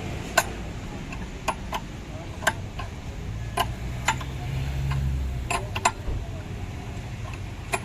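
Sharp metallic clicks and taps from hand tools working on the car's steering parts, about eight at irregular intervals. A low rumble swells in the middle.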